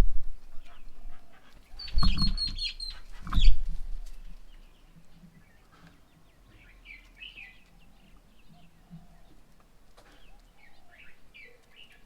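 Birds calling, with a quick run of high repeated notes about two seconds in and faint chirps scattered through the rest. Two heavy low thumps come about two and three and a half seconds in.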